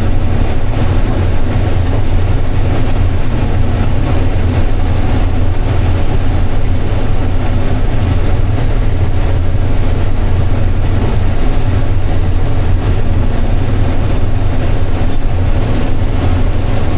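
Combine harvesting corn: a steady, loud drone of the engine and threshing machinery at work, heard from inside the cab.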